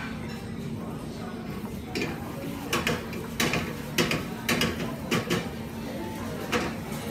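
Spatula clacking and scraping against a frying pan as fried rice is stirred over a gas burner: a string of irregular sharp clacks starting about two seconds in, over a steady low hum.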